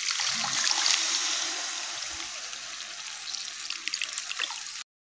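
Tamarind water being poured by hand from a bowl into an aluminium kadai of cooked-down masala: a steady liquid trickle and splash, loudest at first and tapering off. It stops suddenly near the end.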